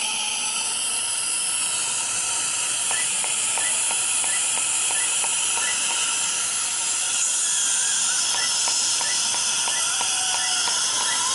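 Steady, loud hiss, with faint regular ticks about every 0.7 seconds from about three seconds in.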